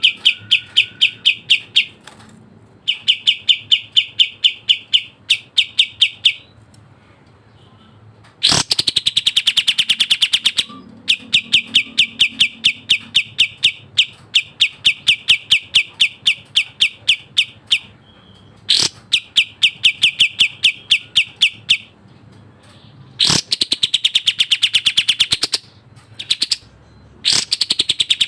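Kapas tembak bird singing fast, dense song: phrases of a few seconds made of rapid, evenly repeated sharp high notes, about seven or eight a second, broken by short pauses. Two or three of the phrases are faster rattling trills that fall slightly in pitch.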